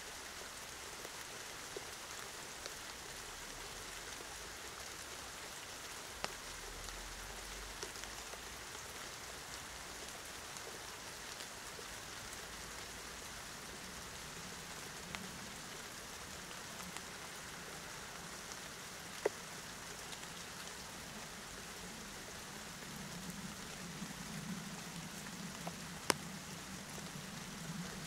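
Steady rain falling, an even hiss with a few sharp drip ticks. A low rumble swells underneath in the second half.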